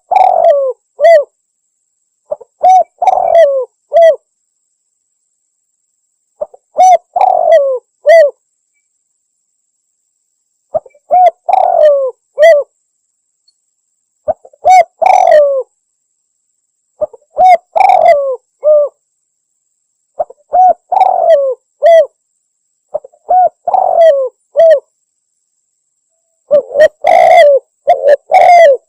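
Spotted dove cooing: phrases of several short coo notes, repeated every three to four seconds, coming faster and running together near the end. It is a lure call, used to draw wild spotted doves in for hunting.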